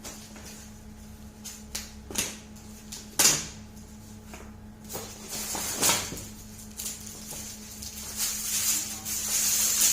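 Gift wrapping being torn open and crinkled: a few sharp rips, then a longer stretch of rustling near the end, over a low steady hum.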